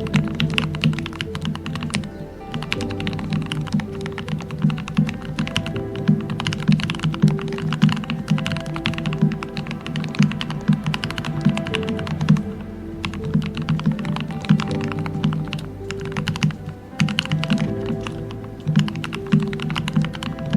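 Steady, fast typing on a modded Royal Kludge RK68 mechanical keyboard: rapid keystrokes with a deep 'thocky' sound, thinning out briefly a few times, over soft background music.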